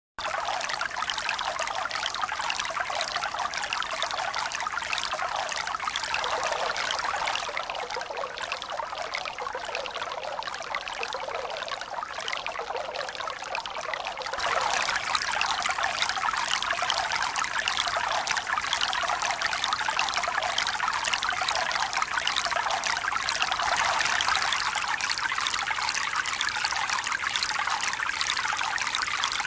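Fountain water splashing and pouring in a steady rush, a little louder from about halfway through.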